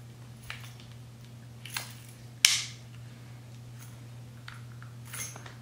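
A few small clicks as the metal emergency key blade is slid back into a GM key fob (C7 Corvette type), with one sharp snap about two and a half seconds in.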